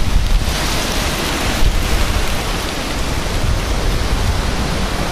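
Strong gusty wind at a severe thunderstorm's gust front, about 45 to 50 mph, rushing and buffeting the microphone with a heavy low rumble. A harder gust comes in over the first couple of seconds.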